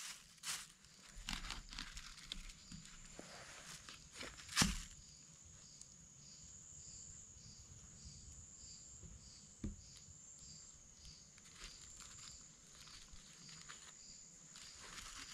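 Night insects calling: a steady high-pitched buzz with a faint pulsing chirp about twice a second. Over it come scattered clicks and knocks of a woven rice basket being handled, the loudest a sharp knock about four and a half seconds in and a smaller one near ten seconds.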